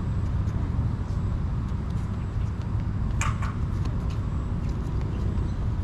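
Ambient sound of an outdoor futsal game: a steady low rumble with scattered light knocks and clicks, and one brief sharp sound about three seconds in.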